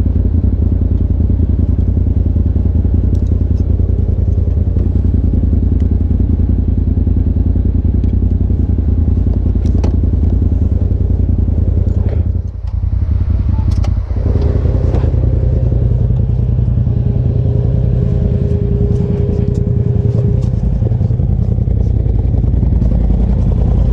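Side-by-side UTV engine idling steadily, with scattered clicks and clatter and a couple of knocks about halfway through.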